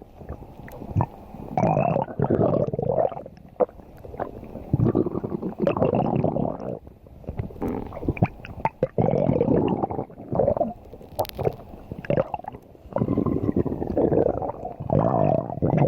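Stomach growling: a run of gurgling rumbles, each a second or two long, with short quieter pauses between them.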